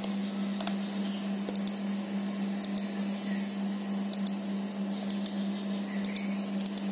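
Scattered clicks of computer keys, often two close together, over a steady low hum.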